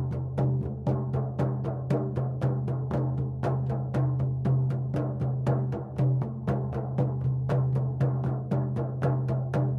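Shamanic drum beaten in a steady, even rhythm of about four strokes a second, each stroke with a low booming tone. This is the monotonous journey beat that carries a shamanic drumming journey.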